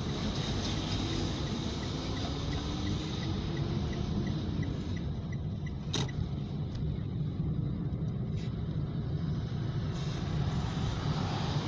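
A car driving, with a steady low road and engine rumble and the engine note rising over the first few seconds. A single sharp click comes about six seconds in.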